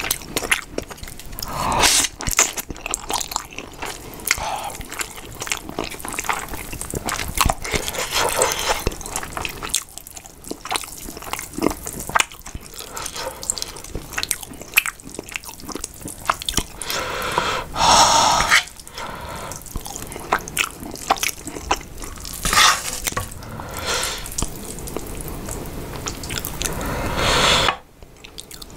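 Close-miked eating sounds: wet chewing of thick, saucy instant noodles with many small mouth clicks, broken by several louder slurps, the longest about a second long, roughly two-thirds of the way through.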